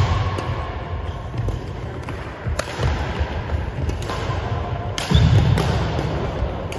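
Badminton rally: three sharp racket strikes on a shuttlecock, about two and a half seconds apart, with players' footsteps thudding on a wooden sports-hall floor in between.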